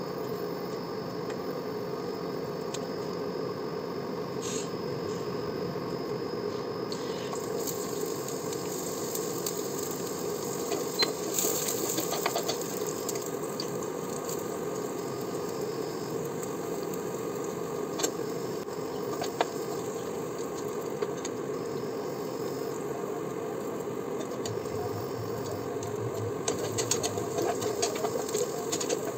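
A steel spatula scraping and clicking against a frying pan as food is stirred, over a steady low hum; the clicks come in a quick cluster near the end.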